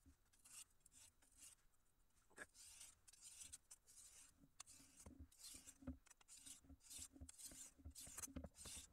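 Faint, steady scraping as a high-carbon steel knife blade is stroked back and forth across a very fine oil stone, about two strokes a second, with a few soft knocks among them. The blade is being sharpened on the oiled fine stone.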